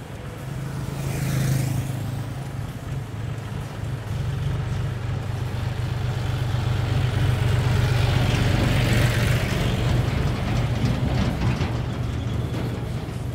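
John Deere four-wheel-drive tractor's diesel engine running steadily as it drives up towing a trailer and passes close by, growing louder to a peak about eight or nine seconds in, then easing off. A lighter vehicle, the motorcycle ahead of it, zips past about a second and a half in.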